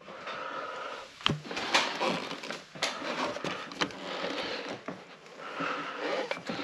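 Irregular knocks and clicks with rustling and scraping between them, as of hands working with tools and materials.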